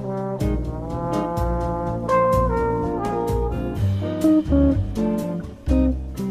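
Background jazz music: brass horns playing a melody over bass notes and a steady drum beat.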